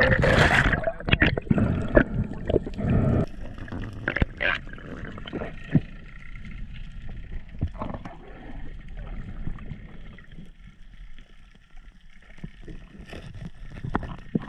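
Water splashing and rushing around the camera for the first few seconds as a freediver goes down from the surface, then a muffled underwater hush with scattered sharp clicks.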